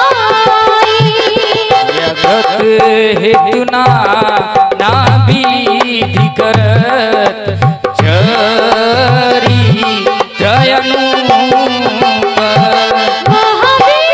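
Devotional Indian music: a harmonium melody over a steady dholak beat.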